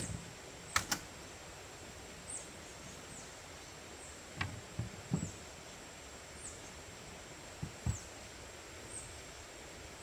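Camp gear being handled in the open back of an SUV: two sharp clicks about a second in, then a few soft knocks and thumps in the middle and near the end. A bird gives a short, high, falling chirp about every second or so throughout.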